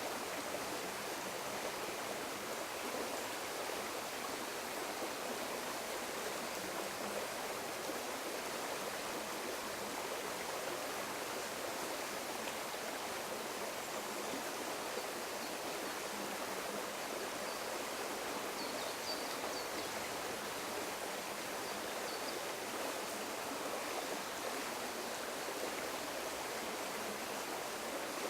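River water flowing, a steady, even rush of running water.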